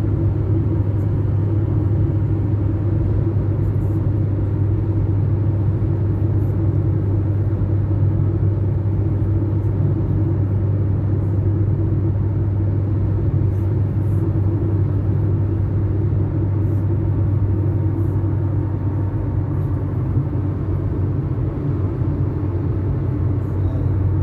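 Steady low rumble of a running motor vehicle: a constant hum with no change in pitch or level.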